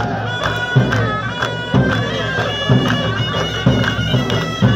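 Traditional Tunisian folk music played live: a shrill, reedy wind instrument carries an ornamented melody over a deep drum struck about once a second.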